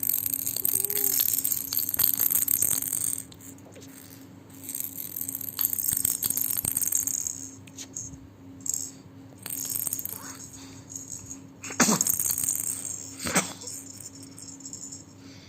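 A baby's toy rattle shaken in several spells of rattling with short pauses between.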